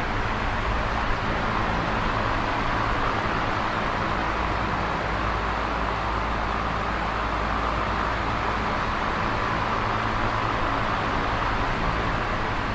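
Electric fan running steadily: a constant whoosh of moving air with a low, even hum underneath.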